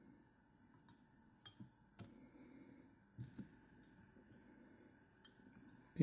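Near silence with a handful of faint, short clicks and taps from fingers and tools handling materials at a fly-tying vise.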